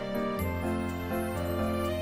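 Background music: an instrumental track of sustained notes, with a low bass note coming in about half a second in.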